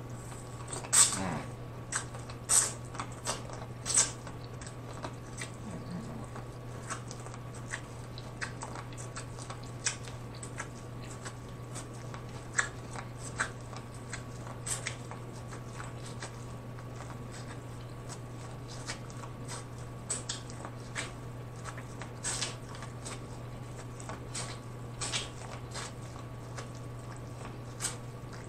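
Close-up eating sounds of biting into and chewing a sauce-coated corn on the cob: sharp, wet crunches and mouth clicks scattered all through, the loudest bites in the first few seconds. A steady low hum runs underneath.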